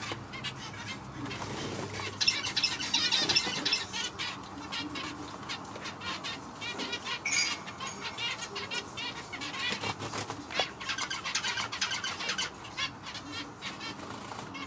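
Zebra finch chirping and calling: a stream of rapid, high, nasal chirps, busiest about two seconds in and again about ten seconds in.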